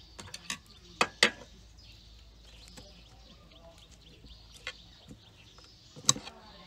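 Utensils clinking on ceramic dishes: a spoon set down by a bowl, then chopsticks picking food from a plate. It comes as a few separate sharp clicks with quiet between them, the sharpest near the end.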